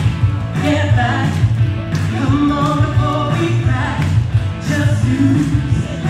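A woman singing live into a microphone over an amplified rock-and-roll backing track with a steady beat.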